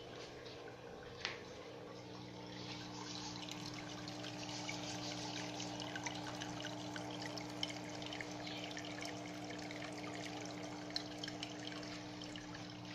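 Cascade (hang-on-back waterfall) aquarium filter running: water steadily pours and trickles from its spillway into the tank, over a steady low hum from the pump motor. A few sharper drips stand out.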